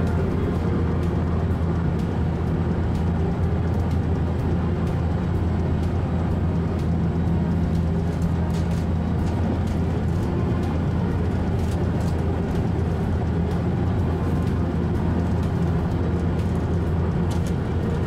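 Special Rapid commuter train running steadily at speed, heard from inside the passenger car: an even rumble with a low steady hum and a few faint clicks.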